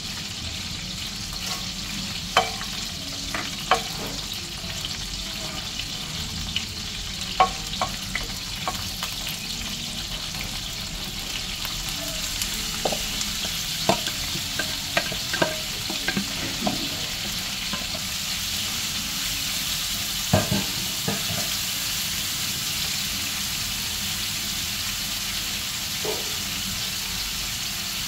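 Oil sizzling steadily under frying seekh kebabs and chopped onions, the sizzle growing louder about halfway through once the onions are in the hot oil. Sharp clinks and knocks of a steel bowl and a wooden spatula against the pans come and go throughout.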